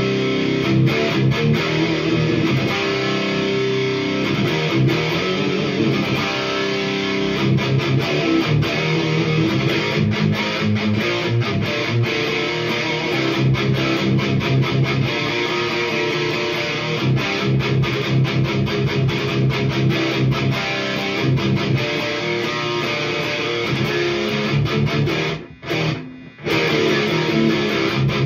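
High-gain distorted electric guitar riffing: an ESP LTD H-400 with Seymour Duncan JB/59 pickups, tuned to drop C, played through the overdrive channel of a Hiwatt Hi-5, a 5-watt all-tube amp with one EL84 power tube, into 1x12 cabinets with Celestion Vintage 30 speakers. The riffing breaks off for two brief stops near the end.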